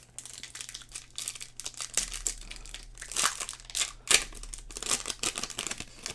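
Foil wrapper of a Topps Chrome trading-card pack crinkling in the hands as it is handled and torn open, an irregular run of crackles with the loudest about four seconds in.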